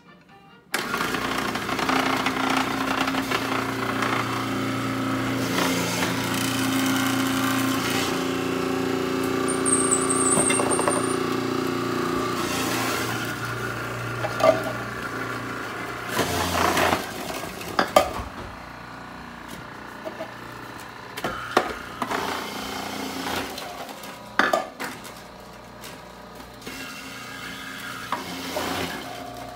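Food processor with a shredding disc switched on about a second in, its motor running as potato pieces are pushed down the feed tube and shredded. From about halfway through it runs quieter, with scattered knocks and clunks.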